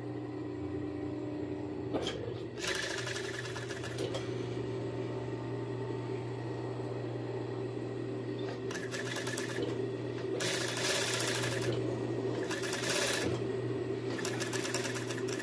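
Industrial sewing machine with a binder attachment stitching binding tape onto swimsuit fabric in about five short runs. Its motor hums steadily in between.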